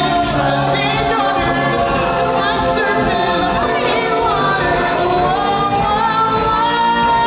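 Live stage-musical song: several voices singing together over the show's musical accompaniment, ending on a long held note.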